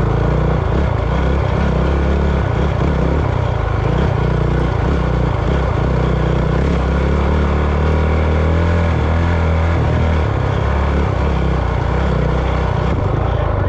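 A vehicle engine running steadily, with the pitch shifting a little around the middle.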